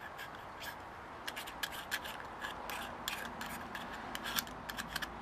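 Razor blade scraping paint off a model truck's cab in many short, quick strokes, thicker from about a second in.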